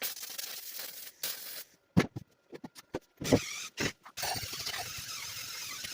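Wire-feed welder laying beads on steel tubing: a crackling, sizzling hiss in runs, broken for about two seconds in the middle by several sharp knocks.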